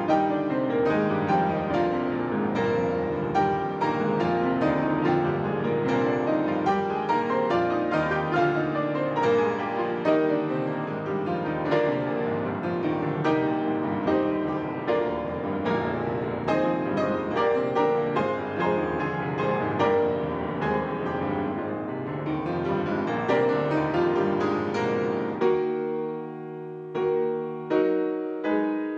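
Two pianos playing a loud classical passage in dense, fast, continuous chords. About three seconds before the end this gives way to separate ringing chords struck one by one with short gaps.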